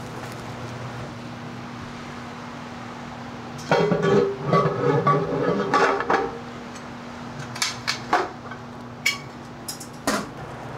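Hard objects, metal and glass by the sound of it, clattering and rattling for about two and a half seconds as they are handled, then several separate sharp knocks and clicks, over a steady low electrical hum.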